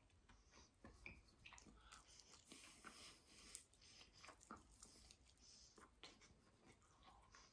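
Faint biting and chewing on fried chicken wings: a scatter of small, irregular clicks from a mouth working on the meat and breading.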